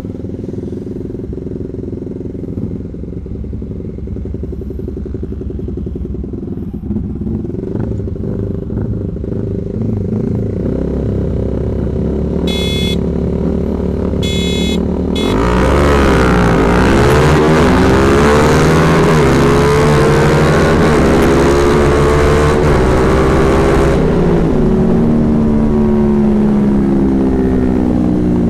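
Two single-cylinder 150 cc motorcycles, a Yamaha Vixion and a Honda CB150R, idling side by side at a drag start, with two short high beeps at about 13 and 14.5 seconds. About 15 seconds in they launch at full throttle, the engine pitch climbing and then dropping at each upshift, with loud wind rush on the bike-mounted microphone.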